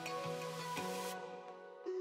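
Soft instrumental background music, thinning out briefly near the end.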